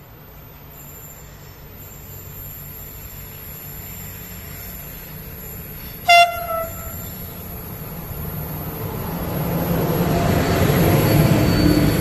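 A CP class 5600 electric locomotive, hauling a passenger train, gives one short horn blast about halfway through as a driver's greeting to the trackside. Around it, the rumble of the train grows steadily louder as it approaches, and it is loudest as the train passes close by near the end.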